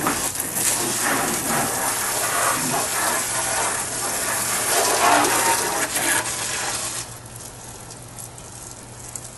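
Water spraying from a garden hose onto a car, a steady rushing hiss that stops about seven seconds in, leaving only a faint background.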